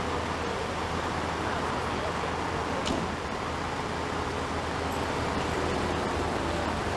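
Steady road traffic noise from cars and buses on a busy city avenue, with one brief click about three seconds in.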